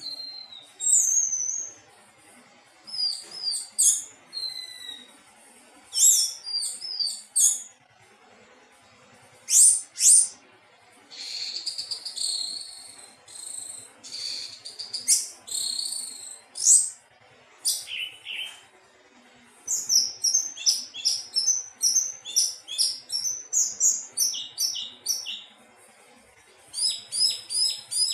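Anis teleng thrush singing: varied, high-pitched whistled phrases separated by short pauses, turning about two-thirds of the way in into a long run of quick repeated notes.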